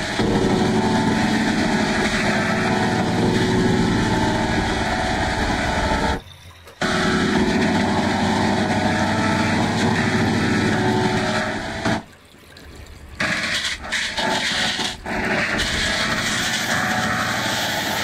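Heavily distorted, effects-processed audio from a kids' TV channel logo: a dense, noisy wash with held tones running through it. It drops out briefly about six seconds in and for about a second around twelve seconds, then turns choppy.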